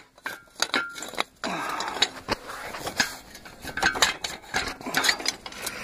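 Steel square tubing clinking, knocking and scraping metal on metal as a bearing-ended inner tube is slid into a larger square tube. Irregular sharp knocks and clicks, with short scraping stretches between.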